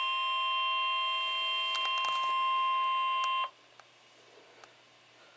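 Emergency Alert System attention tone, a single steady high beep near 1 kHz that signals the start of a severe thunderstorm warning. A few clicks sound over it about two seconds in, and it cuts off suddenly about three and a half seconds in, leaving faint hiss with a couple of soft ticks.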